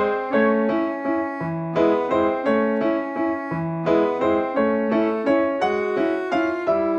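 Background piano music: a steady run of plucked-sounding notes and chords.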